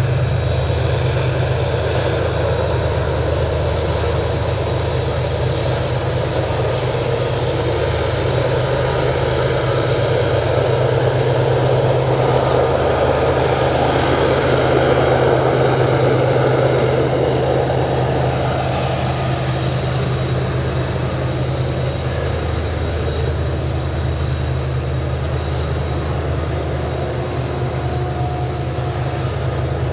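GE diesel-electric locomotives hauling a loaded coal train, running under power with a steady low engine drone and a thin high whine. The sound swells in the middle and eases toward the end as the units pass.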